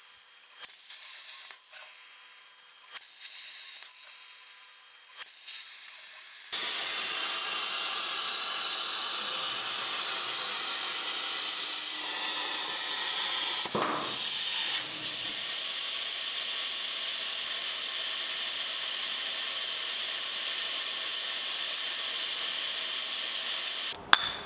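CNC plasma cutter torch hissing steadily as it cuts through steel plate, starting about six seconds in after a quieter stretch with a few short sounds. A couple of sharp metal clinks near the end.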